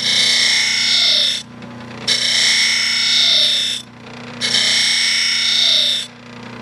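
Steel hoof knife pressed against a spinning deburring wheel on a 1/4 hp Baldor buffer: three harsh grinding strokes of about a second and a half each, with short pauses between, over the motor's steady hum.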